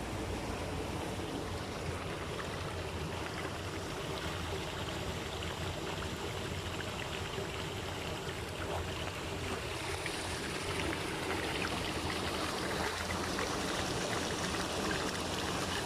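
Water trickling and washing steadily at a lake's edge.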